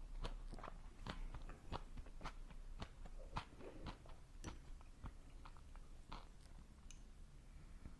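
A person chewing food close to the microphone, with a quick run of sharp, crunchy bites that thin out after about five seconds.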